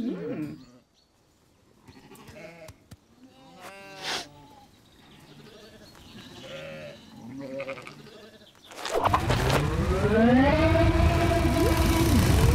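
Cartoon sheep making short, quiet bleats and murmurs. About nine seconds in, a loud, steady low rumble starts, with a long drawn-out tone over it that rises and then holds level.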